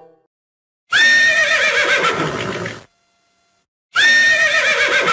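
A horse whinnying twice, each whinny about two seconds long. Each starts on a high held note and breaks into a quavering, falling whinny. The two whinnies are the same recording played twice.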